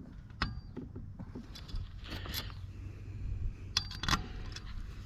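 Small metal hand tools clinking and rattling as they are handled. A few sharp clinks ring briefly, the clearest a little after the start and about four seconds in.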